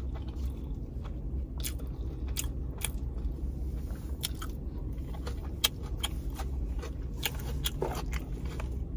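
Close-miked eating: biting and chewing fried chicken tenders and toast, with scattered sharp, crunchy mouth clicks over a steady low hum.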